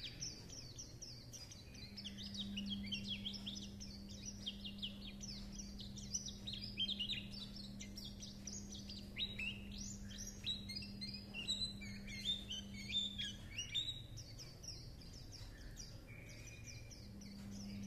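Caged white-eye singing its rapid chattering song: a long run of quick, high twittering chirps and trills that thins out after about fourteen seconds.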